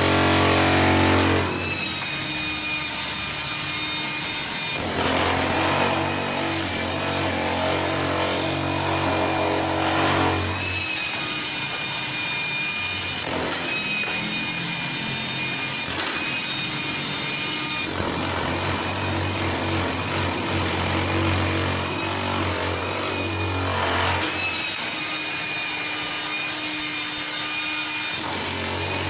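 Hilti TE 800-AVR electric demolition hammer chiseling a concrete wall, hammering without a break. Its low pounding grows stronger for stretches of a few seconds at a time.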